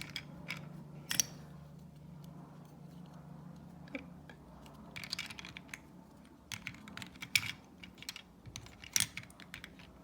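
Small plastic puzzle-cube pieces clicking and clacking irregularly as they are handled and fitted together, in clusters of sharp clicks, over a steady low hum.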